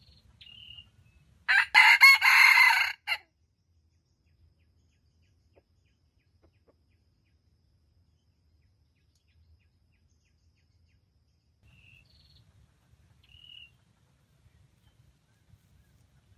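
Red junglefowl rooster crowing once, a short crow of about a second and a half starting about a second and a half in. Faint short high chirps from small birds come a few times around it.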